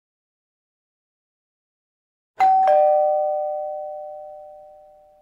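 A two-note ding-dong doorbell chime sound effect, about two and a half seconds in: a higher note, then a lower note a moment later, both ringing on and fading slowly.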